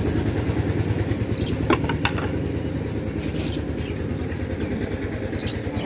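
A small engine running steadily with a rapid, even pulse, growing slightly fainter. A couple of short clinks about two seconds in.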